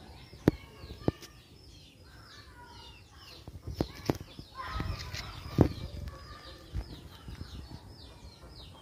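Small birds chirping over and over in short, quick notes, with several sharp knocks scattered through and a brief noisy flurry about five seconds in.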